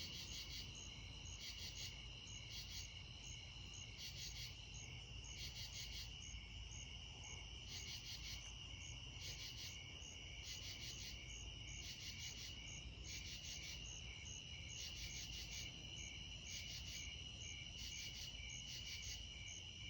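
Crickets and other insects calling together: one steady, high-pitched trill runs on unbroken, while short bursts of rapid pulsed chirps, higher still, come over it every second or so.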